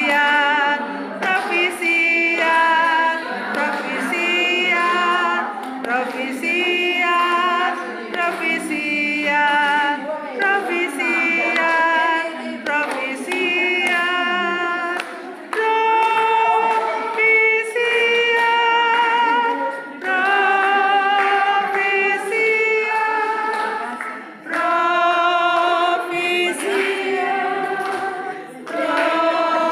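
A choir singing a cappella, sung phrases of held notes with vibrato, broken by short pauses between phrases.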